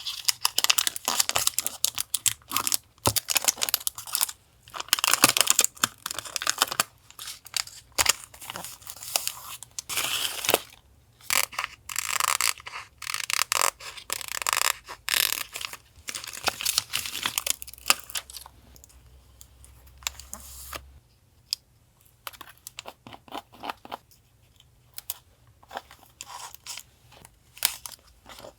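Paper being handled for collage: repeated irregular bursts of crinkling and tearing, which thin out to a few light taps and rustles about two-thirds of the way in.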